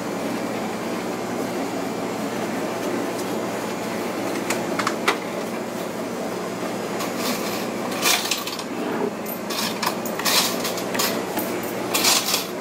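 Steady hum of a small shop's room noise, like air conditioning, with scattered clicks, knocks and rustles of items handled at the counter, more of them in the second half.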